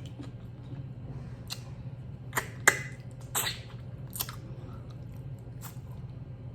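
Close-miked eating: a person chewing food, with about six short, sharp wet mouth clicks, the loudest a little under halfway through, over a low steady hum.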